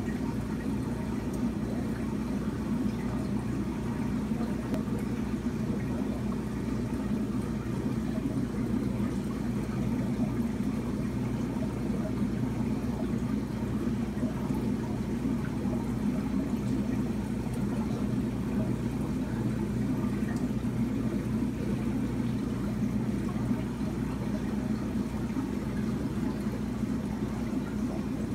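Steady low hum with a water-like hiss from aquarium equipment running, such as the tank's filtration or aeration, unchanging throughout.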